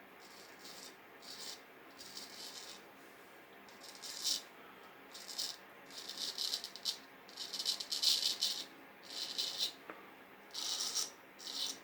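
Vintage straight razor shaving beard stubble: a series of short, crisp scraping strokes, irregular and sometimes in quick runs, as the blade cuts the hair.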